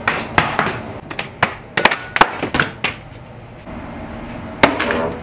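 Plastic water bottle being flipped and missing, landing with thunks and clatters on a wooden stool and hard surfaces: a quick run of knocks over the first three seconds, then two more about four and a half seconds in.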